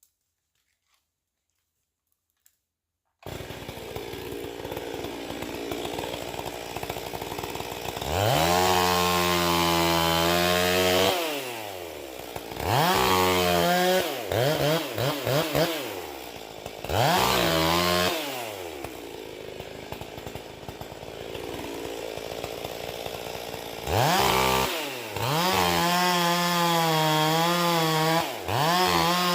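Two-stroke chainsaw that comes in suddenly about three seconds in, idles, then revs up to full throttle several times, with short blips in the middle and a long full-throttle run near the end.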